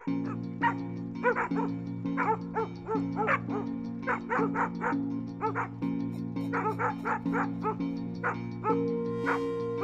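Neighbour's dogs barking repeatedly at a coyote, short sharp barks in quick bursts of two to three a second, over a steady low hum.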